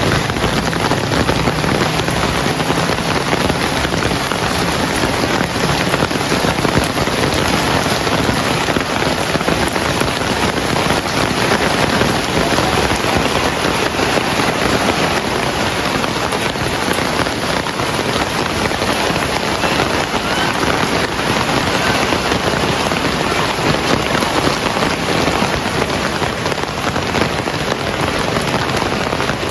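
Heavy rain falling steadily, a dense, even hiss of drops on surfaces with no thunder or breaks.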